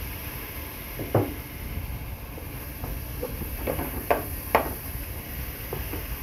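Meat chunks and chopped onion frying in oil in a steel pot, sizzling steadily while a wooden spoon stirs them. The spoon gives four sharp knocks against the pot, one about a second in and three close together a little past the middle.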